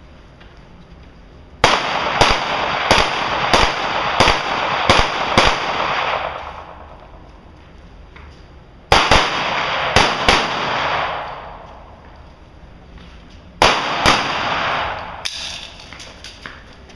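Handgun shots fired in quick strings during an IPSC practical shooting stage: about seven shots a little over half a second apart, a pause, about four faster shots, then a few more near the end. Each string trails off in a long echo.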